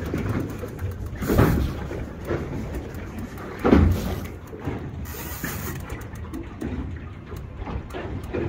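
Big-game reel being wound under heavy load against a hooked southern bluefin tuna, with fast regular clicking, over steady boat and sea noise. Two loud thuds come about a second and a half in and near four seconds.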